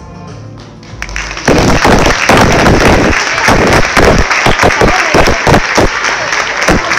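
Music fades out, and about a second and a half in an audience starts applauding loudly, with many sharp individual claps close by.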